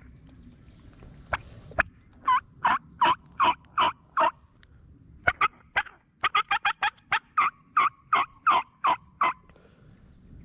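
Turkey yelping: a run of about six sharp, evenly spaced yelps, then a faster, longer run of excited yelps and cutting. A few sharp clicks come before it.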